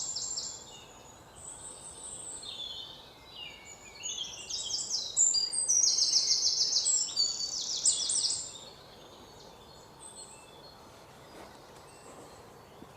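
Songbird singing in high, rapid chirps and trills, loudest from about five to eight seconds in, over a faint steady outdoor background.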